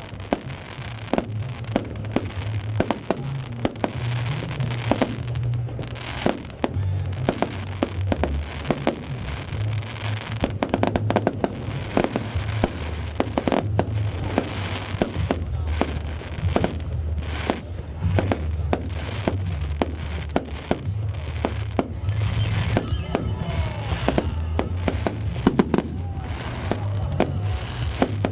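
Fireworks display: a dense, irregular run of bangs and crackles, over music with a heavy, shifting bass line.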